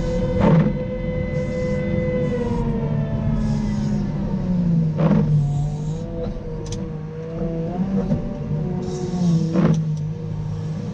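Cat 926M wheel loader's diesel engine running under load while it plows, its pitch dropping about two seconds in and climbing again near the end. Three short sharp noises come about four and a half seconds apart.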